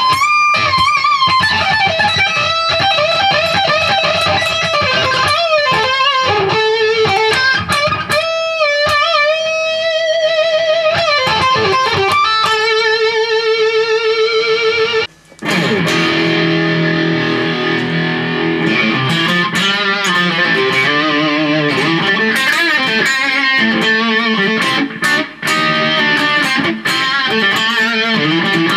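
Ibanez GIO GRG121 electric guitar played through a Peavey Vypyr 30 modelling amp. First comes a high-gain, distorted lead on the amp's Mesa Boogie Dual Rectifier model, with sustained notes, bends and vibrato. After a brief break about halfway, lower-pitched riffing follows on the 'Brit' (Marshall/Vox) model, pushed to a medium, valve-style gain by the amp's built-in Tube Screamer effect.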